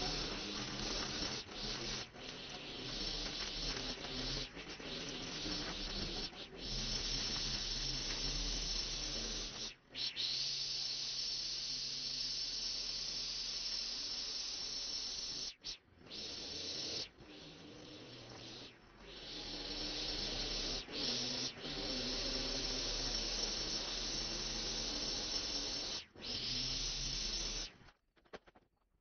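Motorised garden tools at work, a backpack leaf blower and a string trimmer cutting grass, running with a steady rushing hiss that cuts out briefly several times.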